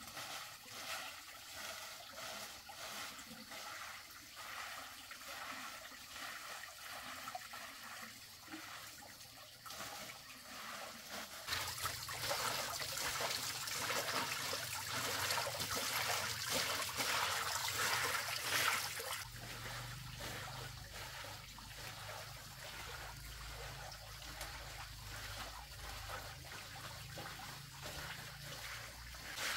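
Water trickling steadily, with a louder stretch of running, splashing water in the middle that starts and stops abruptly.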